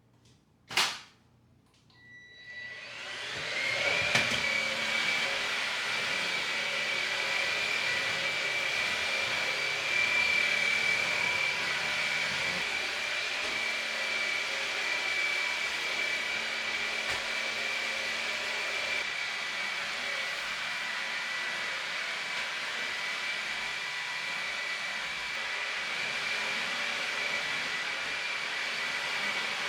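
A click, then an electric appliance motor switches on and spins up over about two seconds. It then runs steadily with a high whine.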